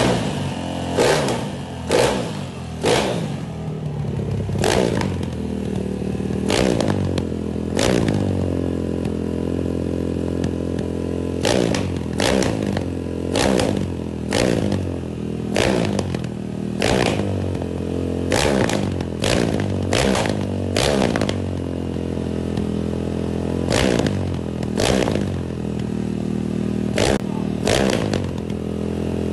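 Tuned Honda ML's single-cylinder four-stroke engine, built up with a 79 mm piston, idling and revved in quick throttle blips, about two dozen times. Each blip jumps up sharply and falls back to idle, often a second or so apart, with two longer stretches of plain idle.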